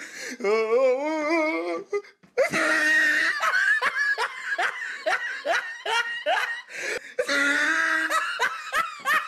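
A person laughing hard: a wavering, drawn-out laugh first, then after a brief pause a long run of short gasping bursts of laughter, a little over two a second.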